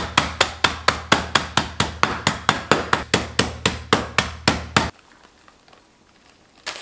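Biscuits in a zip-top plastic bag being pounded with a stainless rolling pin on a folded cloth: rapid, even strikes, about four to five a second, that stop about five seconds in. A rustle of the plastic bag starts just before the end.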